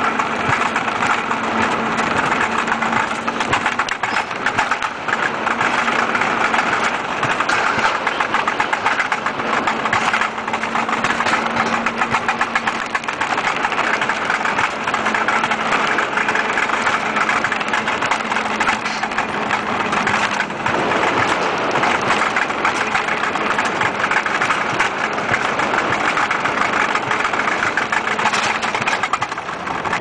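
Alpine coaster sled running down its tubular steel track: a steady, loud rumble and rattle of the wheels on the rails, with a faint hum that comes and goes.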